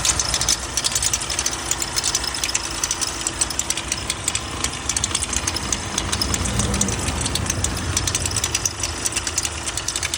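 Volkswagen Amarok diesel engine running with a rapid, steady clatter of ticks, the noise it made after its high-pressure fuel pump burst and threw metal filings.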